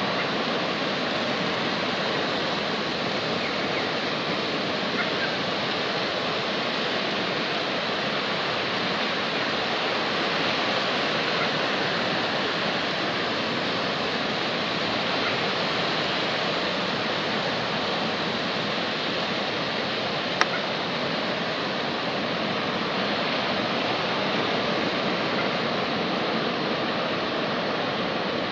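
Water rushing through a dam's open spillway gates and churning below: a steady, unbroken rush of white water. One short sharp click about two-thirds of the way in.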